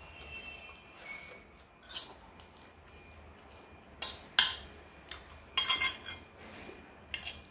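A metal spoon clinking and scraping against a bowl: a short ringing clink at the start, then a handful of sharp clicks spread through the rest.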